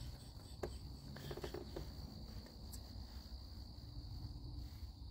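Crickets chirring steadily in one even high trill over a low rumble, with a faint click about half a second in.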